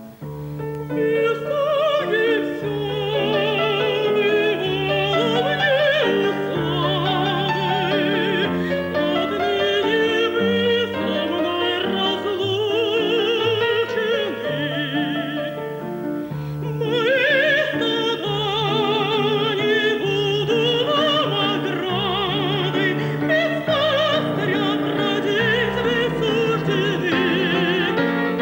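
Classical vocal music: an operatic singer with strong vibrato over instrumental accompaniment.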